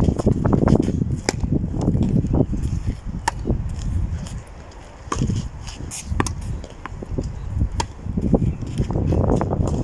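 Tennis balls struck by rackets during play on a clay court: sharp pocks spaced about a second apart, with a low rumble underneath that swells in the first few seconds and again near the end.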